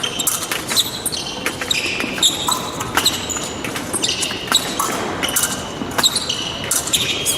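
Fencers' shoes on the piste in a large hall, mid-bout: quick stamping footsteps and short rubber-sole squeaks, repeated irregularly throughout.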